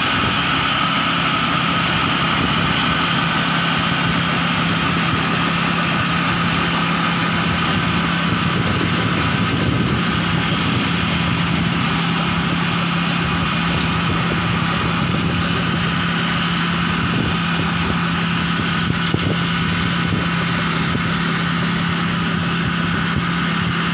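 Kaset Pattana 'Ngern Mee' rice combine harvester running steadily while cutting and threshing lodged, water-soaked rice, its engine holding one even, sweet-sounding note.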